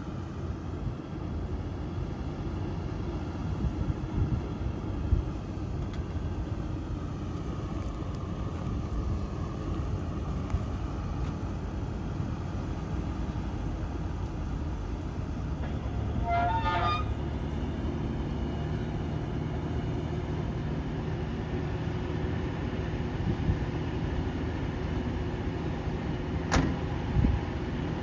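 1974 Ford F600 dump truck's engine running steadily, taking on more load about halfway through as the hydraulic hoist raises the dump bed. A brief squeaky chirp comes just after the change, and a sharp click sounds near the end.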